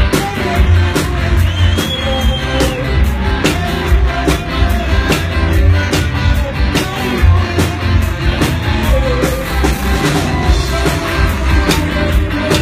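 A live band playing loud music with a steady beat of drum strikes over heavy bass.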